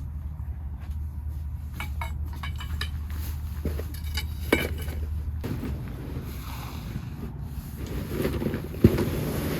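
Camping gear being handled and packed up: scattered light clicks and clinks, and a sharp knock near the end, over wind noise on the microphone. A low steady hum stops about halfway through.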